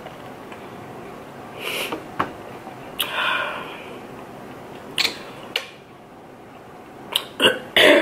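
A few clicks and knocks as an insulated water bottle is drunk from and set down on the table, then three short coughs close together near the end from a woman who is sick with a sore throat.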